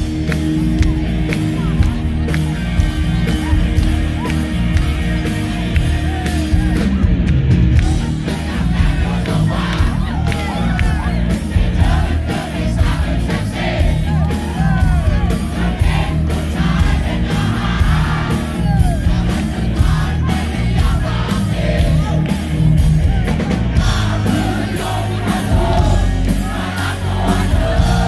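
Live rock band playing loudly through a PA: a male singer singing over bass guitar and drums keeping a steady beat, with shouts from the crowd.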